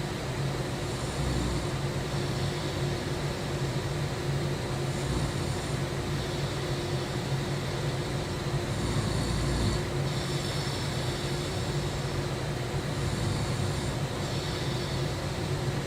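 A sleeping person snoring in a slow, regular rhythm, a breath about every four seconds, over a steady low hum.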